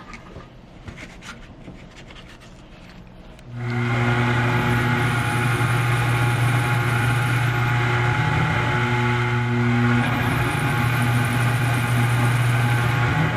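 Faint handling and rubbing sounds, then about three and a half seconds in an electric shop machine switches on and runs steadily with a strong low hum.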